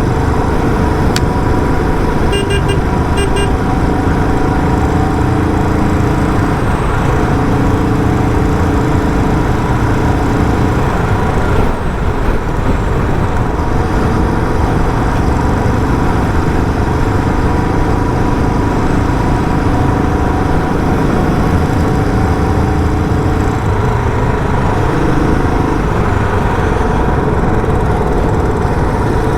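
Royal Enfield Bullet 350's single-cylinder engine running steadily through its stock silencer as the bike is ridden, its pitch shifting a little with speed. A horn sounds a few short beeps about two to three seconds in.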